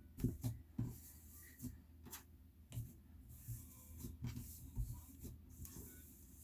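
Slime being squished and poked by hand: irregular small clicks and pops, some with soft low thuds, about two or three a second.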